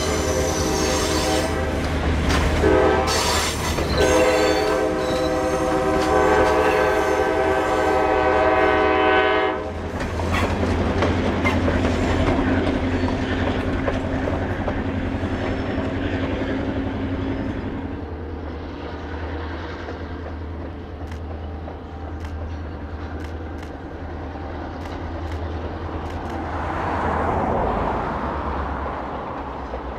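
F40PHM-2C diesel-electric locomotive sounding its multi-note air horn, broken briefly about three seconds in and then held until about nine seconds in, over the low rumble of its diesel engine. After the horn the train keeps running past with its engine droning and wheels clicking over the rail joints.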